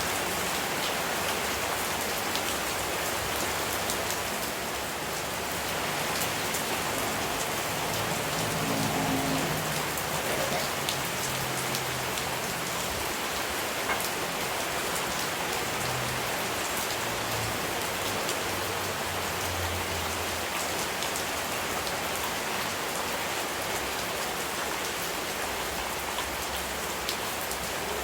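Steady rain falling, a continuous hiss with scattered individual drops ticking on a surface.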